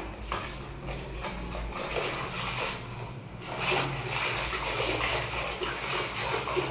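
Water sloshing and splashing in a plastic basin of soapy bath water as a hand swishes through it, in irregular strokes.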